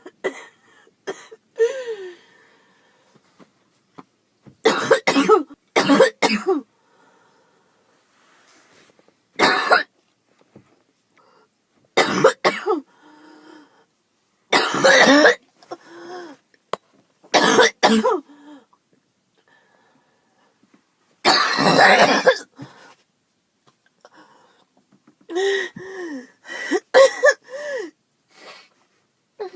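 A girl coughing in repeated harsh bouts, some single coughs and some runs of two or three, with quiet gaps between. Near the end comes a quick run of shorter, voiced coughs and throat clearing. It is a cough she no longer believes is just allergies.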